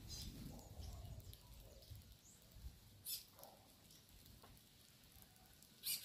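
Faint sounds of a flock of small finches feeding on scattered grain: a few short, high calls, about halfway through and, loudest, just before the end.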